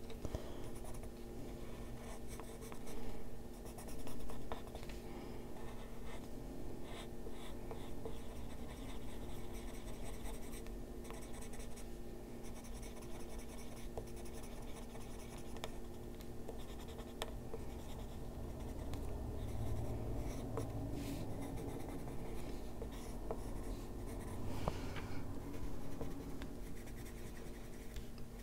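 Coloured pencil strokes scratching steadily on paper, a Derwent Lightfast pencil layering over colours already laid down, with a steady low hum underneath.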